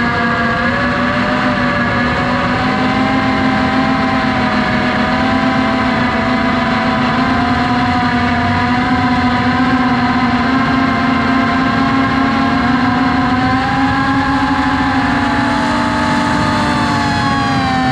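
FPV drone's motors whining steadily in flight, several tones drifting up and down as the throttle changes, with a dip and rise in pitch near the end.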